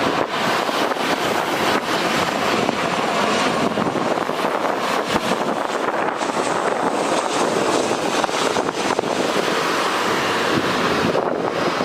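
Jet aircraft engine noise, steady, with wind buffeting the microphone; a faint high whine comes in about halfway through.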